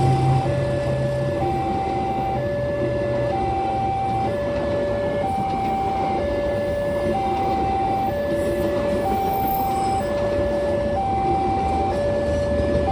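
Railway level-crossing warning alarm sounding a steady two-tone hi-lo siren: a higher and a lower tone alternate, each held about a second. It is the warning that the crossing barrier is coming down for a train. A low vehicle rumble sits underneath, fading after the first second or so.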